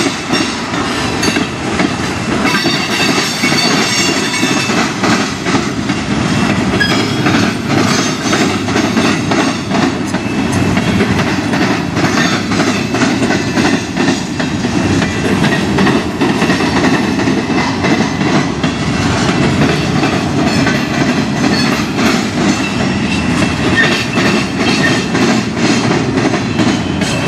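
Freight train cars rolling steadily past: a continuous rumble of steel wheels on rail with repeated clickety-clack as the wheels pass over rail joints.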